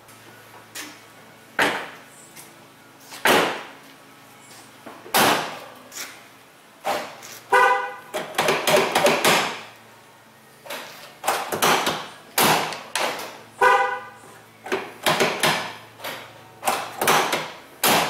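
1999 Chevrolet Tahoe's power door locks clunking again and again as they are cycled, with two short horn chirps, the lock confirmation from the keyless remote. The locks now work, the worn-out rear door lock actuator having been replaced.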